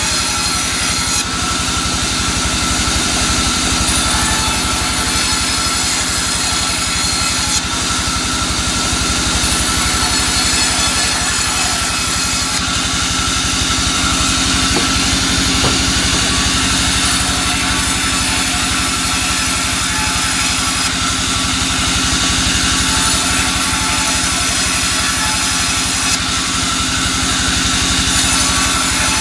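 Band saw mill running steadily, its blade sawing through soft albasia (sengon) wood beams fed by hand.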